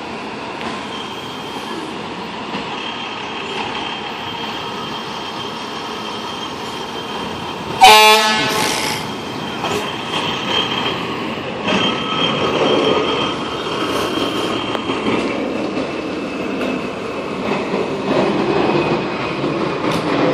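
Fire engine's diesel engine running as it pulls out of the firehouse, with one short, very loud air-horn blast about eight seconds in. The engine grows louder in the second half as the rig moves out onto the street.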